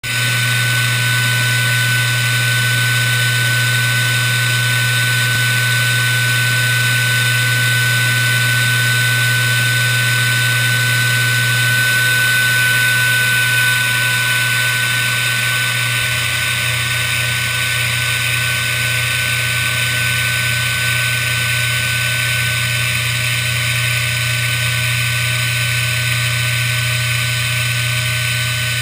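Hobby CNC router milling a quadcopter arm from sheet stock: the spindle's steady high whine with the hiss of the cutter in the material. Under it runs a low hum from the machine's stepper drives, which changes about 12 seconds in and again about 16 seconds in as the cutting moves change.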